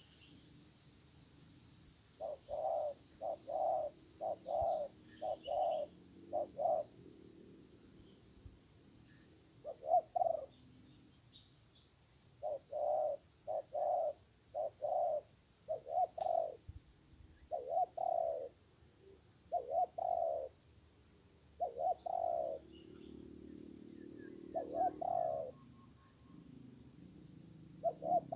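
Spotted dove cooing: short, low coo notes in runs of several, with pauses of a second or two between runs. Faint chirps of small birds are heard behind it.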